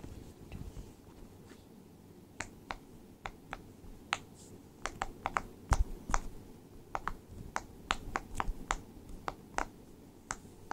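Sharp little clicks or taps, about two dozen at an uneven pace, starting about two seconds in, over a faint low hum.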